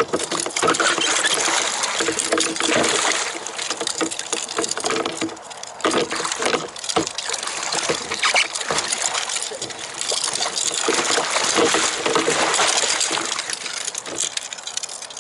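Water splashing and rushing around a kayak, swelling and fading every few seconds, with occasional small knocks.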